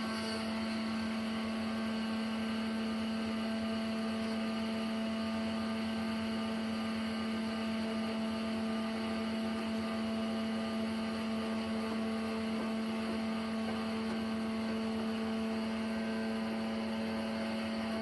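Sawmill machinery running with a steady hum: one strong low tone with fainter steady tones above it, unchanging throughout.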